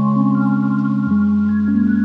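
Background music: slow, soft synthesizer chords that change about every second, with a higher melody of held notes above.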